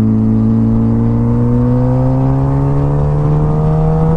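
Suzuki GSX-R sport bike's inline-four engine pulling steadily in one gear, its pitch rising gradually as the bike accelerates.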